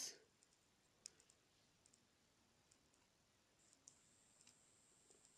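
Near silence with a few faint, scattered clicks from a metal crochet hook and fingers working yarn in slip stitches.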